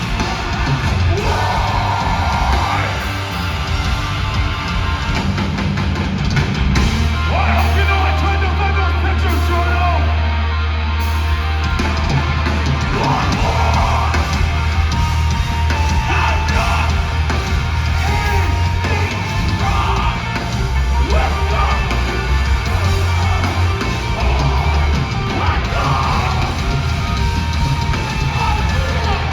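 Metalcore band playing live: heavy distorted guitars with long, sustained low bass notes and drums, under screamed vocals.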